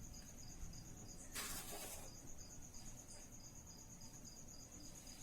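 Faint cricket chirping, a steady string of short high pulses about three times a second. A brief soft rustle comes about a second and a half in.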